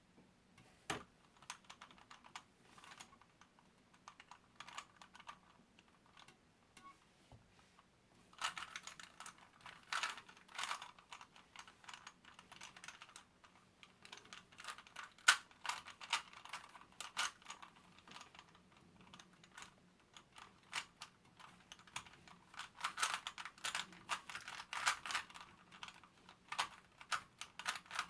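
Rubik's brand 3x3 cube being solved by hand, its plastic layers clacking as they turn: a few scattered turns at first, then from about eight seconds in, fast bursts of turning separated by short pauses. The turns are stiff, which slows the solve.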